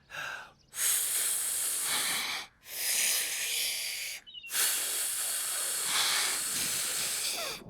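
Forceful blowing out of breath by cartoon characters: a short puff, then three long, hard blows of a second and a half to three seconds each with brief pauses between.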